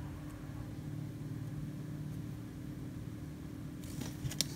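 A steady low machine hum, with a few light clicks a little before the end.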